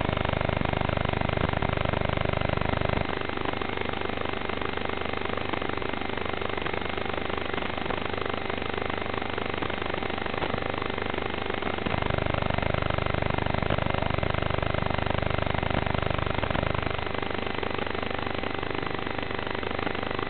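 Helix ZX5 racing quadcopter's motors and propellers, heard as a steady, hissy, muffled drone carried over the analog FPV video link. It is louder and deeper for the first three seconds and again from about twelve to seventeen seconds in.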